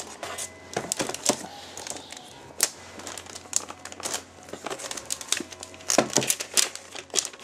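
Clear plastic wrapping around a laptop crinkling as it is handled, in irregular small crackles and clicks, a few of them sharper than the rest.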